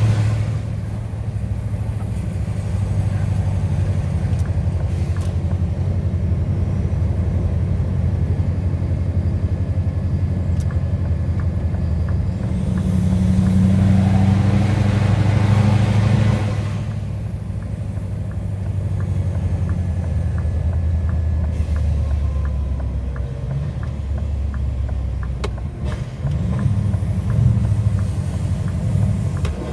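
Scania R730's 16.4-litre V8 diesel running steadily under way, a low drone that swells louder for a few seconds around the middle and again briefly near the end.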